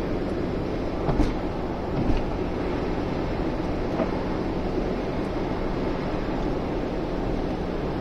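Cabin noise of a Citroën XM driving at motorway speed in the rain: a steady low engine drone under an even rush of tyre and road noise. Two short knocks come a little after one second and two seconds in.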